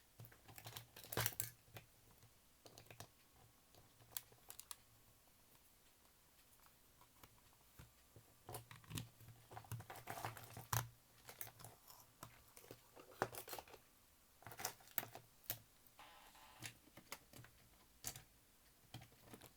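Scattered light clicks and knocks, some in quick clusters, of hands handling a small plastic cassette player and its accessories, with a faint low hum underneath.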